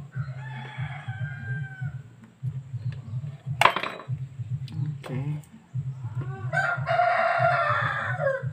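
A rooster crowing, with shorter calls about a second in and one long crow of about two seconds near the end. A sharp click about halfway through is the loudest moment. A low pulsing hum runs underneath.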